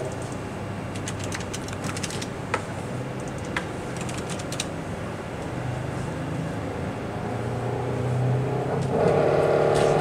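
Repsol Honda MotoGP V4 engine running on a test-cell dynamometer, heard muffled through the cell's double safety doors. It holds a steady hum at idle with a few clicks from the control console. Over the last few seconds the revs climb and the engine note rises and grows louder.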